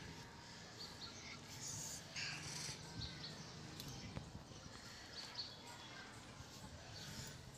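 Fingertips and fingernails rubbing and scratching through a boy's short hair, with faint scattered clicks of nails picking at strands while searching for nits.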